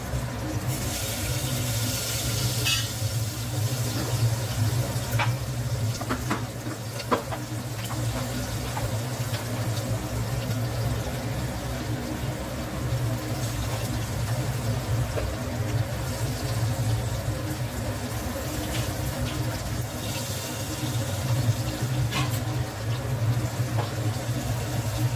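Garlic and spices sizzling in a pressure cooker pot on a stove, over a steady low hum, with a few light clicks of utensils about five to seven seconds in.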